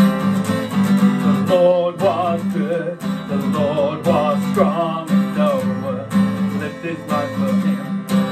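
A man singing a cheerful worship song, accompanied by strummed acoustic guitar.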